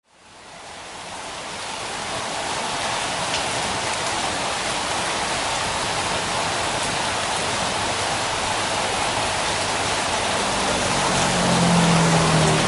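Steady rain falling on foliage, fading in over the first couple of seconds. A low hum swells near the end.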